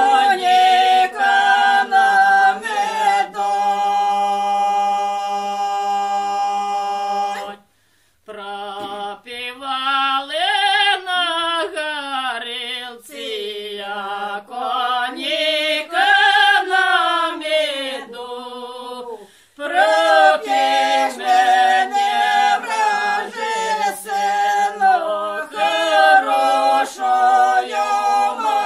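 Unaccompanied women's voices singing a Ukrainian folk song together, a cappella. A long held note a few seconds in gives way to a brief pause for breath, after which the melody resumes in slow, gliding phrases.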